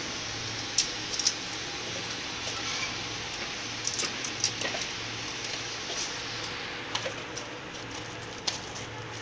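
Scattered light clicks and rustles of set-top box accessories and a clear plastic pouch being handled, over a steady hiss with a low hum.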